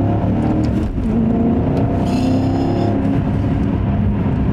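Maserati GranTurismo S's 4.7-litre V8 with factory sport exhaust, heard from inside the cabin pulling under acceleration, its pitch climbing. About a second in there is a brief break as the F1 automated gearbox shifts up.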